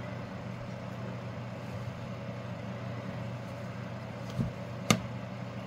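Steady low hum of room background noise, with a single sharp click near the end.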